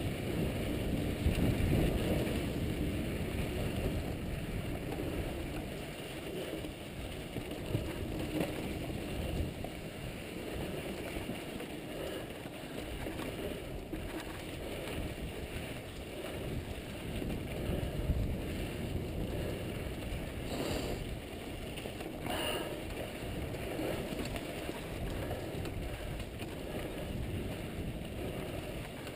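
Mountain bike rolling down a dry, rocky dirt trail: tyres on loose dirt and gravel, the bike rattling over rough ground with a few sharper knocks, and wind on the microphone.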